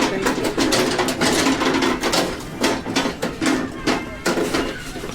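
Busy supermarket interior: voices talking in the background with frequent short clatters and knocks of goods and fittings.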